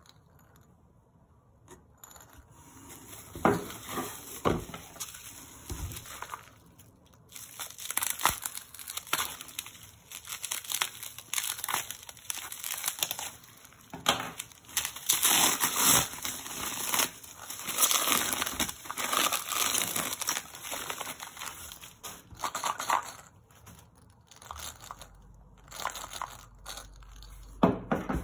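Plastic bubble wrap crinkling and rustling in irregular bursts as it is handled and pulled out of a cardboard box, with a few knocks.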